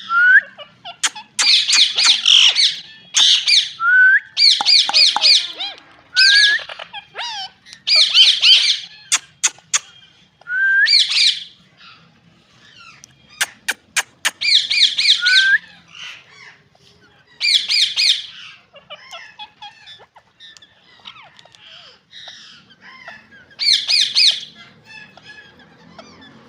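Indian ringneck parakeet squawking: repeated loud, harsh bouts of about a second each, several opening with a short rising note, spaced by pauses that grow longer after the middle. A few sharp clicks fall between the calls.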